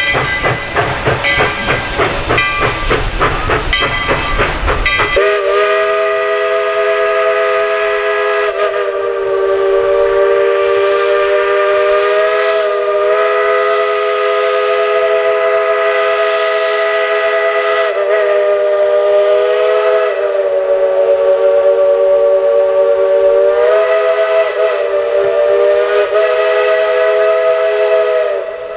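Narrow-gauge steam locomotive's whistle, held as one long chord of several notes at once, wavering slightly in pitch now and then. It comes in about five seconds in, after a rhythmic beat of the working train.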